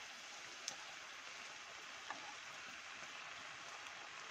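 Pieces of wheat-flour dough deep-frying in hot oil: a steady, soft sizzle with a couple of small pops.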